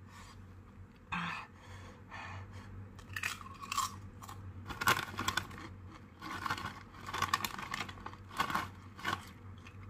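Crisp ghost pepper tortilla chips being bitten and chewed, a run of irregular crunches.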